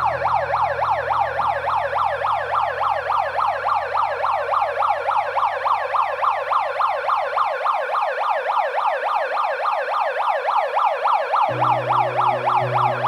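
Fast yelping siren from a handheld megaphone held up to the vocal microphone, sweeping up and down about five times a second without a break. Under it run low sustained instrument tones, which drop out a little past halfway and come back near the end at a different pitch.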